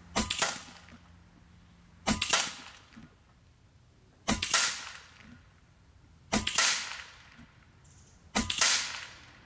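Five shots from a .25 caliber Taipan Veteran II Tactical PCP air rifle firing 60-grain boat-tail slugs, about two seconds apart. Each is a sharp crack with a short decaying tail.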